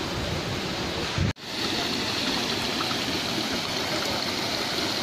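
Steady rush of water from a waterfall and its stream running over shallow rocks. For the first second or so, wind rumbles on the microphone over it; then the sound drops out for an instant and the even water rush carries on.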